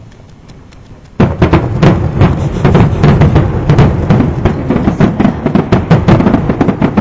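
Fireworks grand finale: aerial shells bursting in quick succession, a dense, loud run of booms and crackles that starts suddenly about a second in.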